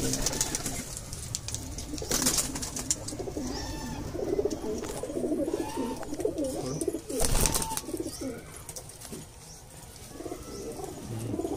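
Several domestic pigeons cooing in a loft, their wavering low calls coming and going, with two brief sharp noises about two seconds and seven seconds in.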